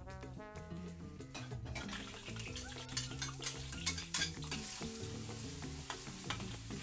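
Minced garlic frying in hot oil in a brass wok, sizzling from about two seconds in, with a metal ladle scraping and clinking against the wok and bowl, loudest around the middle. Soft background music runs underneath.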